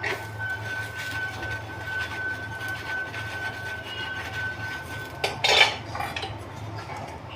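A steady high beep-like tone holds for about five seconds, then a short clatter of dishes and utensils a little past the middle.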